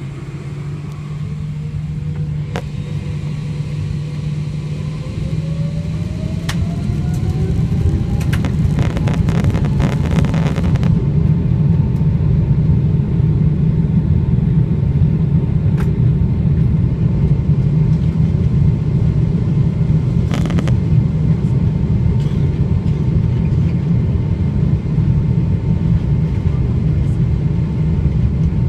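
Boeing 777 jet engines spooling up to takeoff power, a whine rising in pitch as the sound builds over the first several seconds, then a steady, heavy rumble of the takeoff roll. A short burst of rattling comes about eight seconds in.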